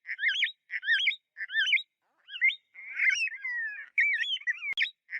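A bird calling: short wavering whistled chirps repeated every half second or so, then a longer, more varied run of calls midway, with a sharp click near the end.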